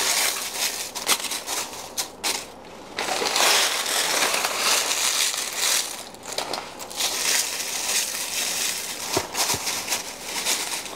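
Dry leaves being crushed and crumbled by hand, a dense crackling with quieter pauses about two seconds in and again near the middle.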